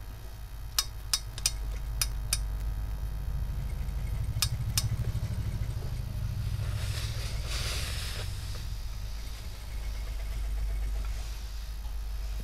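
Hose-fed steam iron in use on fabric: a burst of steam hissing about seven seconds in, after several sharp clicks, over a steady low machine hum.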